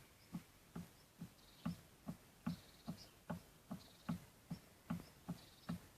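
Faint, regular knocking from the steering of a BMW X5 E53 4.6is, about two to three knocks a second, as the steering wheel is rocked right and left. The owner takes it for play somewhere in the steering or worn running gear.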